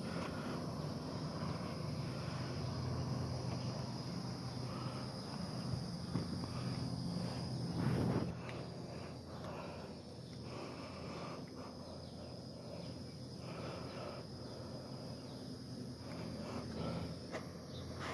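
Steady high-pitched chirring of insects, with a low rumbling noise under it that swells just before eight seconds in and then eases off.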